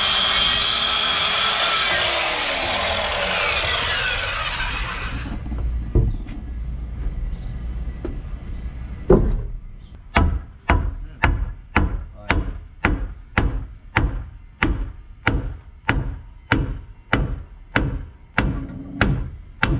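Electric circular saw cutting through a wooden block, then winding down about five seconds in. After two single knocks, a steady run of hammer blows, about two a second, drives a wooden prop post up into place under a roof beam.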